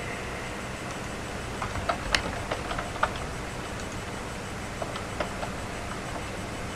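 Steady background hiss with scattered sharp clicks from the computer's controls being pressed: a cluster of about six clicks around two seconds in, and three more near five seconds.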